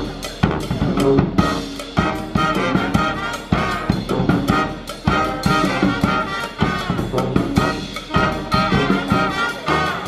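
Upbeat brass-band jazz with trumpet and trombone over a steady drum beat.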